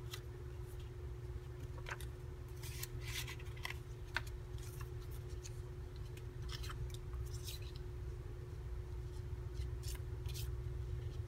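Small paper cards and cut-out images being handled and shuffled by hand: scattered brief, crisp paper rustles at irregular moments, over a steady low hum.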